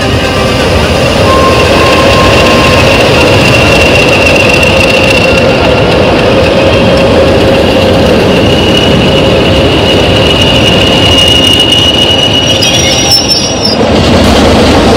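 Heritage British Rail diesel locomotives moving slowly past at close range, with loud, steady engine and running noise. A steady high squeal sounds over it for most of the time, and the noise dips briefly about thirteen seconds in.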